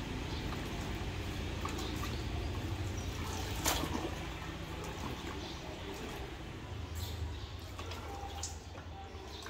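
Water splashing and sloshing in a plastic tub as plastic toy trucks are dunked and scrubbed in it, with small knocks throughout and one sharp knock a little under four seconds in.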